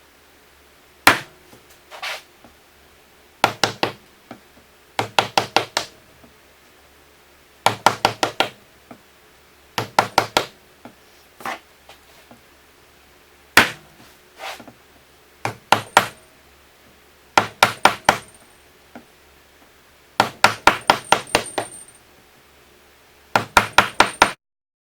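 Hammer tapping in quick runs of three to six sharp knocks, with short pauses between runs, while a square hole is worked out of a wooden tabletop. The knocking cuts off suddenly near the end.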